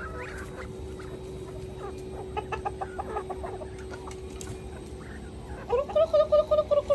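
Chickens clucking: a quick run of short clucks a little before halfway, then a louder, rapid string of calls near the end.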